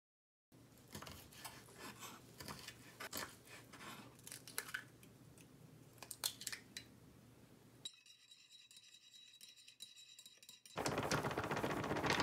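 Light clicks and ticks of food being threaded onto wooden toothpicks over a wooden cutting board. Near the end comes a louder, steady rustling hiss of Korean frying mix (buchim-garu) pouring out of its bag into a ceramic dish.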